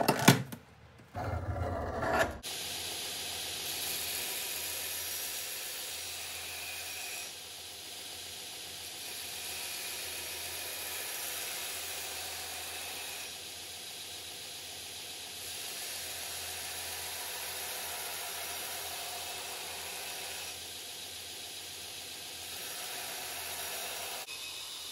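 A sharp knock in the first second as the knife blade and measuring gauge are handled on the glass plate. Then a belt grinder grinds the steel knife blade: a steady abrasive hiss over the low hum of the motor, swelling and easing every few seconds as the blade is drawn along the belt.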